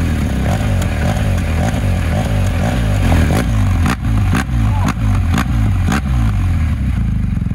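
BMW R 1250 GS boxer-twin engine revved at a standstill through a Jekill and Hyde Nomad valved exhaust: loud, quick repeated throttle blips that rise and fall in pitch. There are a few sharp cracks in the second half.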